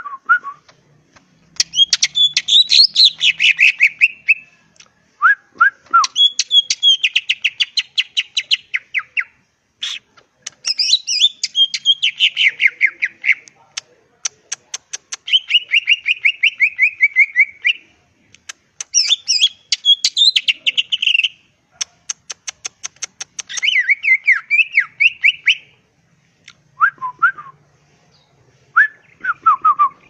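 Caged male green leafbird (cucak ijo) singing loudly in phrases of fast, rattling repeated notes, each lasting a few seconds with short breaks between. A few short falling whistles come in between the phrases.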